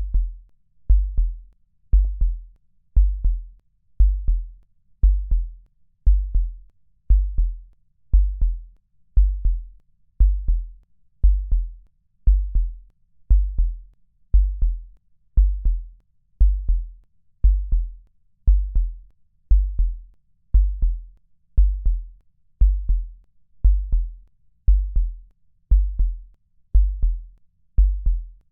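A slow electronic kick-drum pulse: one deep thump about once a second, with a short click on each beat and nothing else over it.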